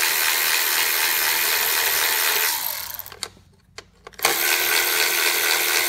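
Cordless Milwaukee ratchet running, spinning out the 8 mm ignition-coil bolts. It runs steadily, winds down a little over halfway through, and starts again after about a second's pause.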